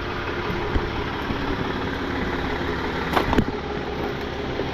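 Tow truck engine idling steadily, with two short knocks a little over three seconds in.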